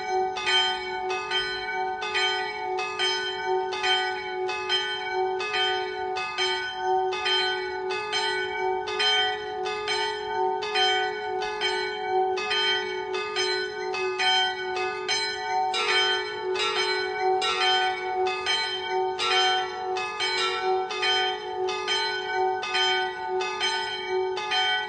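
Church bells ringing a steady peal: about one and a half strikes a second over their lingering hum. About two-thirds of the way through, further bell notes join and the pattern shifts.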